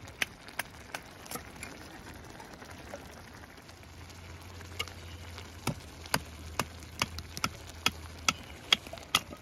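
Food cooking in a pan on a camp stove, giving sharp irregular pops and ticks. The pops are sparse at first and come about twice a second in the second half, over a low steady hum.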